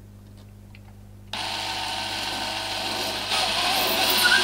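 Power drill running a long drill bit through a hole in XPS foam board to clean it out. It starts abruptly about a second in and gets louder about three seconds in.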